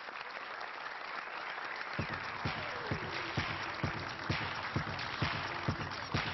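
Audience applauding; about two seconds in, music with a steady thumping beat, about two beats a second, starts up under the clapping.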